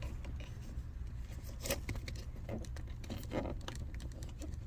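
Faint scattered clicks and short rustles of small plastic trim parts being handled and fitted by hand, over a steady low hum.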